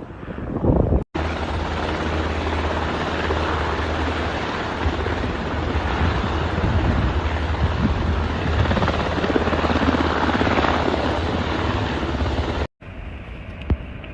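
Rescue helicopter running close by: a loud, steady rotor and engine noise that starts abruptly about a second in and cuts off abruptly near the end.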